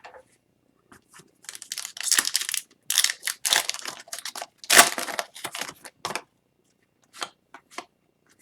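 A foil trading-card pack wrapper being torn open and crinkled, with loud ripping and rustling over several seconds, followed by a few light ticks of cards being handled.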